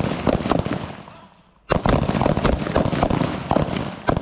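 Rapid rifle fire from M4 carbines on a firing range, many sharp shots close together. The shooting trails off about a second in, starts again abruptly after a short lull, and dies away near the end.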